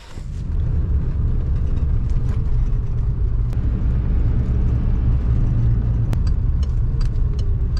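Car driving along a town road, heard from inside the cabin: a steady low rumble of engine and tyre noise.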